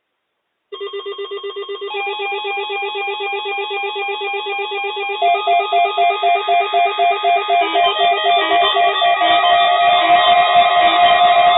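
Several NOAA weather alert radios sounding their electronic alarms for a tornado warning, each starting in turn: fast pulsing beeps begin about a second in, a warbling tone joins at about two seconds, a louder pulsing alarm about five seconds in, and slower single beeps near the end, all layered together.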